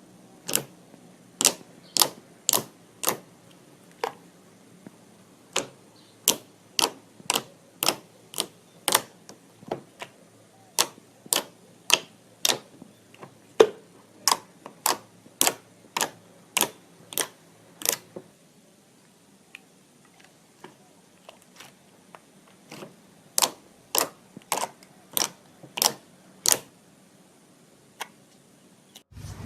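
Slime being pressed and poked, giving sharp popping clicks about two a second in runs, with a pause of several seconds about two-thirds of the way through.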